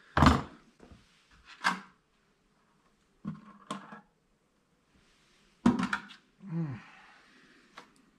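A few separate knocks and clunks of a steel snap ring, tools and small axle parts being handled at a plastic bucket of oil. The loudest knock comes right at the start.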